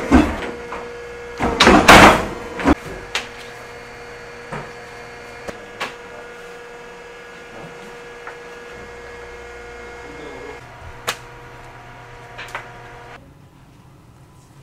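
Beam die-cutting press cutting through layered tent fabric with a loud clunk about two seconds in, then its motor humming steadily, with a few light knocks as the cut pieces are handled. The hum stops near the end.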